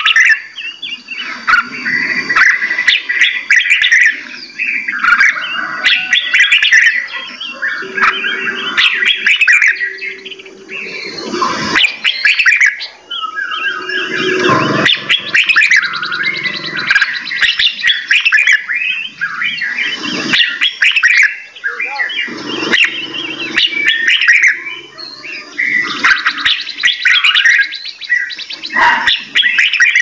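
Several caged songbirds chirping and singing at once, a dense tangle of overlapping high chirps and whistles, with a few lower, longer notes underneath and scattered sharp clicks.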